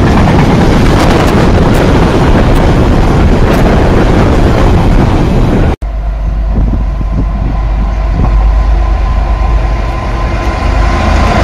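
Container wagons of a freight train rushing past close by, a loud steady rumble of wheels and rails. After a sudden cut about six seconds in, a Freightliner Class 66 diesel locomotive approaches at the head of a container train. Its engine is a low drone that grows louder, and a thin steady whine joins it in the second half.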